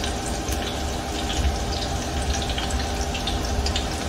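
Battered cauliflower pieces deep-frying in a saucepan of hot oil: steady sizzling and bubbling, with many small crackles.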